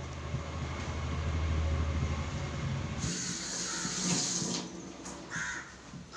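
Low rumble of air buffeting the microphone as a plastic hand fan is waved close to it, then a hiss of water running from a kitchen tap for about a second and a half, about three seconds in.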